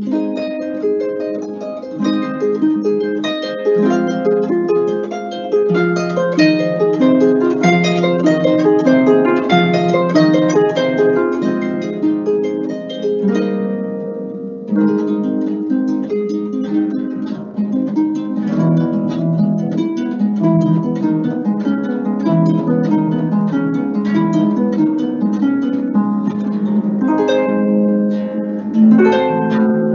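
Harp played solo: plucked notes and chords ringing over one another in a flowing melody, with a brief softer moment about halfway through.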